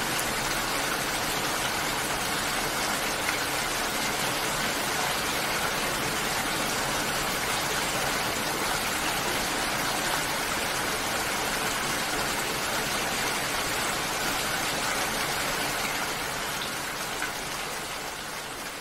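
Steady rain falling, an even dense hiss of many drops, which fades down over the last few seconds.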